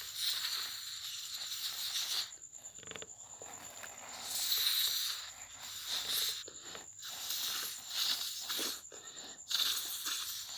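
Homemade slime being worked by hand or stirred, making irregular sticky crackling and hissing squelches that come in bursts of a second or two with short pauses between them.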